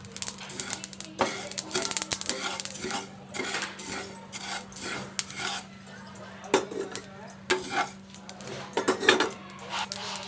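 A utensil stirring dry-roasting whole spices (fennel, mustard seeds and cumin) in a non-stick frying pan: irregular scraping and clinking strokes against the pan, over a faint steady hum.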